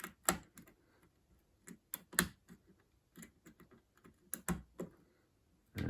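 Lock pick working the spool pins of a doorknob lock under tension: irregular sharp metallic clicks as pins are pushed and set, with a few louder clicks about a third of a second in, just past two seconds and around four and a half seconds.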